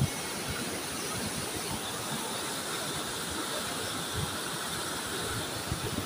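Fast-flowing mountain river in spate: a steady rushing of whitewater over rocks.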